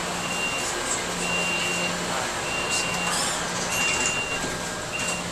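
Electronic warning beeps in an MBTA Green Line Type 8 light-rail car: a single high tone repeating about five times, a little over a second apart, over the car's steady low hum.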